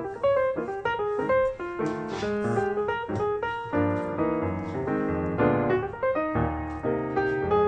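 Background piano music: a brisk run of notes with chords beneath.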